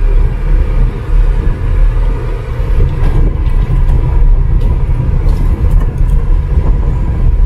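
Inside the cab of a Suzuki Multicab with its 660 cc F6A engine, driving slowly over gravel: a loud, steady low rumble of engine and tyres, with a few faint ticks in the middle.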